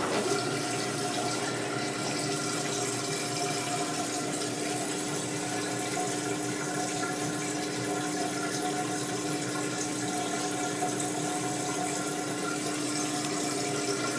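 Maytag Neptune washer running in its service test cycle: a steady pump hum over rushing water, which the owner at first took for the drain pump coming on, the old fault that had ended the test before the repair.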